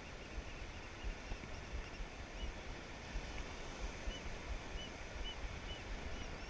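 Wind rumbling and buffeting on the microphone over an even hiss of surf along the beach, with a few faint short high chirps in the second half.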